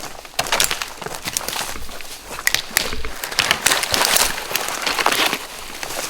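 Footsteps crunching and brushing through dry vegetation: a dense, irregular run of crackles and rustles.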